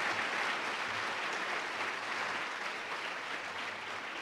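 Audience applauding, a dense steady clapping that slowly fades.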